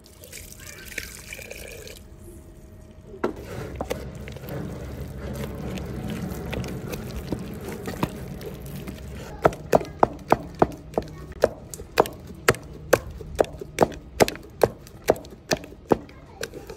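Hot water poured from a bowl into a pot of cassava flour dough, then a stretch of steady low noise. From about halfway, a wooden stirring stick knocks against the metal pot in a steady rhythm, two to three knocks a second, as the stiff kokonte dough is driven and stirred.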